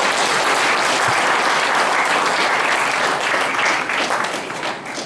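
Audience applauding, a dense steady patter of many hands clapping that thins out near the end.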